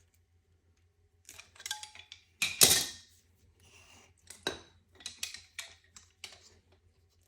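Hard parts of a new fuel injector and fuel rail clicking and knocking as the injector is twisted and pushed into the rail. The clicks are irregular, and the loudest is a sharp clack about two and a half seconds in.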